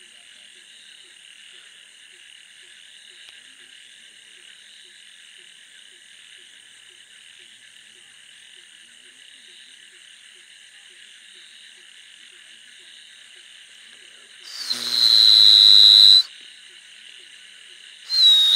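A steady night chorus of frogs and insects in a wet paddy field, with faint regular low calls. Near the end it is cut by two loud hissing bursts, each about a second and a half long, carrying a shrill whistle-like tone.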